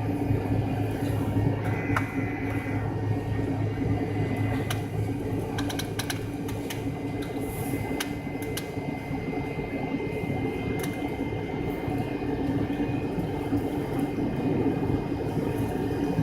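Steady cabin hum inside an MD-83 from its rear-mounted Pratt & Whitney JT8D engines running at low power before takeoff, with faint light clicks and rattles now and then.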